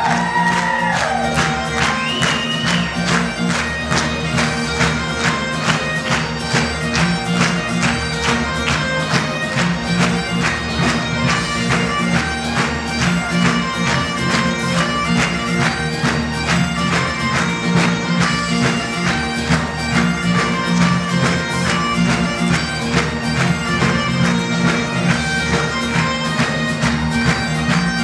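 Highland bagpipe music: a dance tune played over steady drones, with a regular quick beat.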